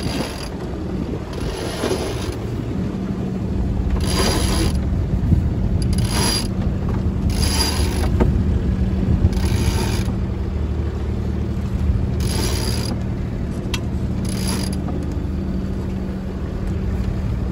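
Sailboat sheet winch ratcheting in short spurts, about every two seconds, as the headsail sheet is cranked in after a tack. A steady low hum runs underneath.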